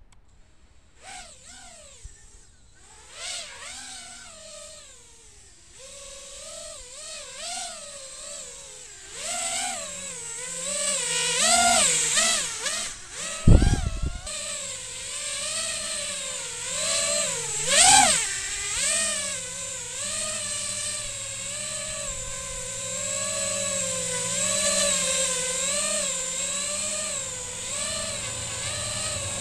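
Brushless motors and propellers of an iFlight XL5 FPV quadcopter whining, the pitch wavering up and down with throttle over a steady high whine, growing louder as the quad spools up. A single sharp thump about halfway through is the loudest moment.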